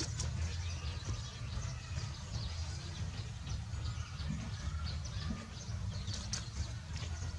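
Wild birds chirping and calling in many short, high notes, over a steady low rumble.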